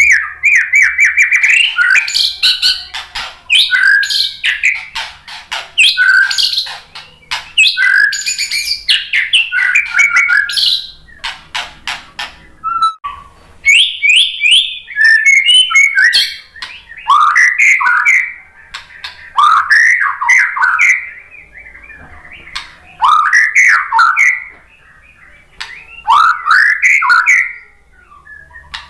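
White-rumped shama singing a loud, varied song. For about the first eleven seconds it gives rapid runs of clicking and chattering notes. After a short pause it sings repeated phrases of sweeping whistled notes.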